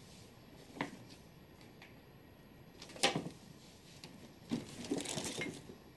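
Handling noises as a sheet-mask sachet is put away and the next product picked up: a small knock early, a sharper click about three seconds in, and a stretch of rustling near the end.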